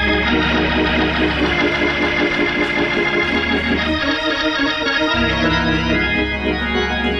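Organ playing sustained gospel chords over a bass line that shifts to new notes a few times.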